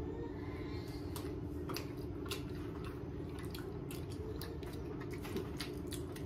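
Two people quietly chewing a soft frosted cookie, with small wet mouth clicks and smacks scattered throughout. A steady low hum runs underneath.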